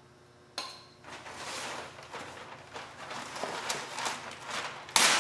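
Masking paper rustling and crinkling as it is pulled off a roll and handled, with a short, loud rip near the end.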